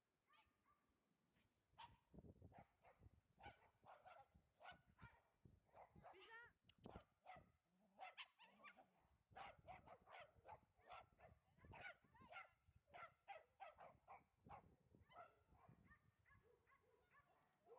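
Dogs barking, many short barks in quick succession that start about two seconds in and thin out near the end.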